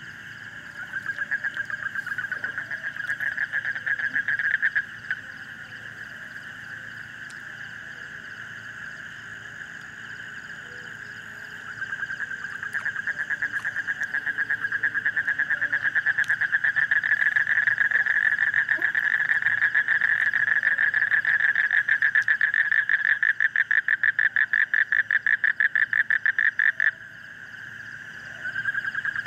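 Frogs calling in a rapid pulsed trill: a short burst near the start, then a longer run from just before halfway that stops abruptly near the end. Under it is a faint steady high-pitched background.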